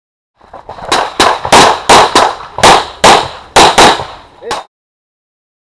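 A CZ pistol firing a fast string of about nine shots, mostly in quick pairs, each a sharp crack with a short echo; the last shot is weaker.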